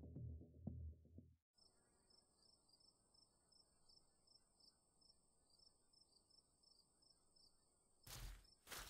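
Faint cricket chirping, a steady high trill over a pulsing chirp, after background music cuts off about a second and a half in. Near the end, a couple of heavy footsteps sound.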